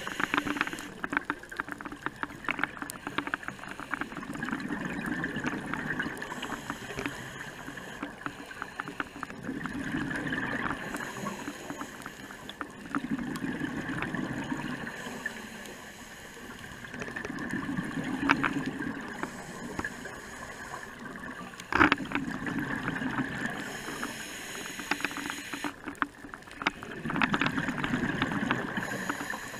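Underwater scuba breathing heard through a camera housing. Exhaled bubbles rumble in swells every four to five seconds over a constant hiss. Scattered clicks and crackle run throughout, with one sharp knock about two-thirds of the way through.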